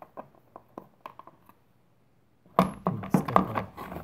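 Flathead screwdriver prying at the plastic top cover of a Poulan Pro chainsaw. A few light clicks come first, then about two and a half seconds in there is a dense run of loud plastic clatter and knocks.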